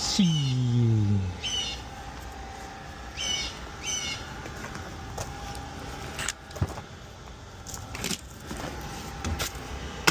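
A small bird chirping repeatedly in short high calls. About a second and a half at the start is a loud, low pitched sound sliding downward, and a few sharp clicks or knocks come in the second half.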